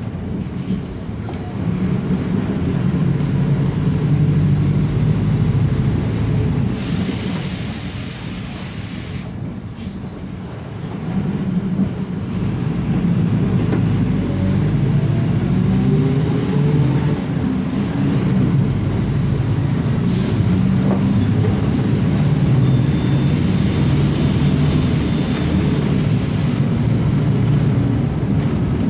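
Mercedes-Benz OF-1721 Bluetec 5 bus under way at high revs, its engine drone mixed with a growling whine from the differential that rises and falls in pitch. Twice a few seconds of hiss come in over it.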